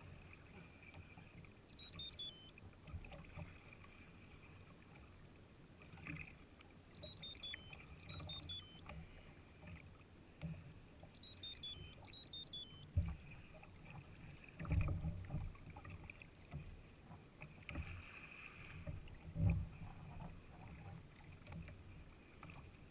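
Quiet on-board sound of a kayak on the water, a low rumble with several dull knocks from the hull. A few short, high, stepwise-falling chirps come in small groups.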